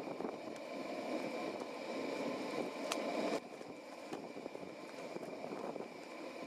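A forge fire blowing with a steady rush and a faint steady whine above it. There is a single metallic clink about three seconds in, and the rush drops sharply just after it, staying lower as the red-hot bar comes out to the anvil.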